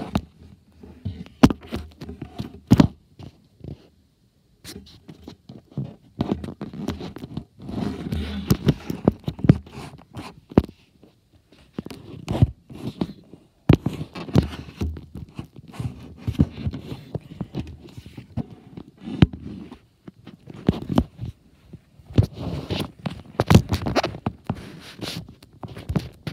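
Close, irregular scraping and scratching, scattered with sharp clicks and knocks and broken by short quiet gaps: handling noise of the camera rubbing and bumping against a reptile and its terrarium decor.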